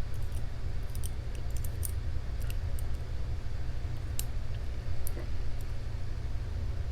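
Faint, irregular small metallic clicks of a lock pick working the pins inside a Master Lock 6835 padlock, a click every second or so, over a steady low hum.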